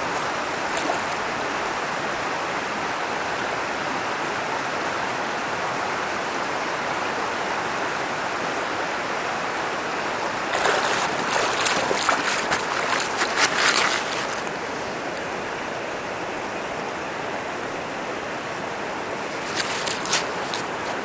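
Steady rush of a shallow river running over pebbles. About ten seconds in, about four seconds of splashing as a pike is lifted out of the water. Near the end, a few sharp crunches of wading boots on river gravel.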